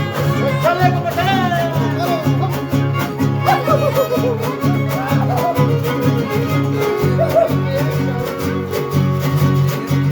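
A son huasteco trio playing live: a violin melody with slides over a steady strummed rhythm from the jarana and huapanguera guitars.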